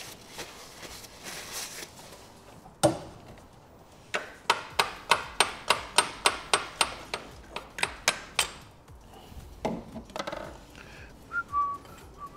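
Hammer striking metal on the engine: one heavy knock, then a quick run of about sixteen ringing metallic blows, roughly four a second. Someone whistles a few notes near the end.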